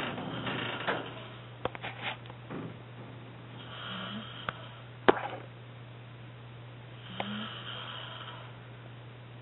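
A man snoring in his sleep: two snores about three seconds apart, around the middle and about three-quarters of the way in, over a steady low hum. A noisy rustle at the start and a few sharp clicks in between, the loudest just after the middle.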